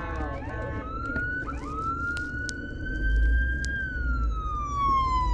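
Emergency vehicle siren wailing: one long tone that climbs slowly, then slides steadily down in pitch, over the low rumble of the car.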